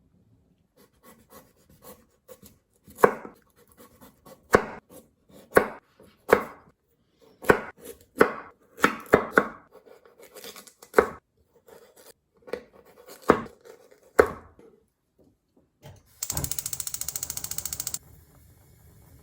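Kitchen knife chopping food on a cutting board: irregular, unevenly spaced knocks, some sharp and ringing. Near the end a rapid, even clicking buzz lasts about two seconds.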